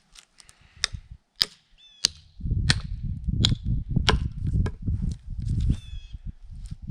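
Mini sledge tapping wooden wedges into a split in a log: a steady run of sharp strikes, about one and a half a second. A low rumble sets in about two and a half seconds in.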